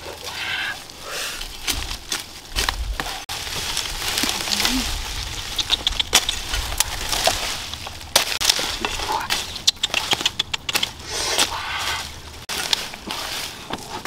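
Dry leaves, twigs and brittle bracket fungus crackling and snapping as they are handled, broken and trodden on: a dense, irregular run of sharp cracks and clicks.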